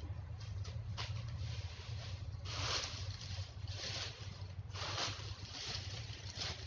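Dry fallen leaves rustling and crackling as they are handfuls stuffed into a woven sack, in four or five bursts about a second apart starting a couple of seconds in, over a steady low hum.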